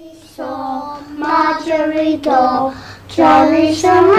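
A child singing a simple tune in held notes, starting about half a second in.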